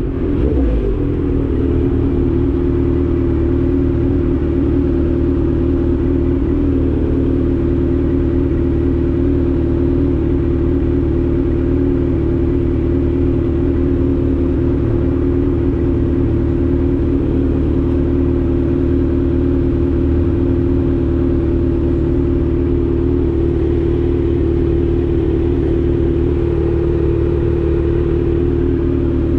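Kawasaki Z900 inline-four running through an Austin Racing full aftermarket exhaust, held at a steady engine speed while cruising, its exhaust note staying at one even pitch throughout.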